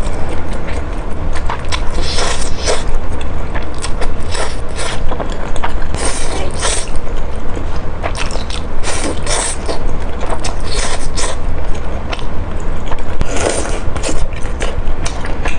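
Close-miked eating of creamy-sauce spaghetti: wet chewing and mouth clicks with occasional longer slurps of noodles, over a steady low hum.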